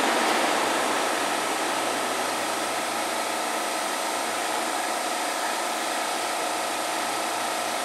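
Steady whirring hum of a stationary Keihan 3000 series electric train, its air-conditioning and auxiliary equipment running while it stands at the platform, with a few faint steady tones in the hiss. It eases slightly in level about a second in.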